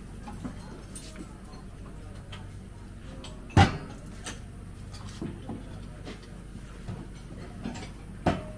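Stainless steel roll-top chafing dish lids being opened and shut, with a sharp metal clank about three and a half seconds in and another near the end, and lighter clicks between.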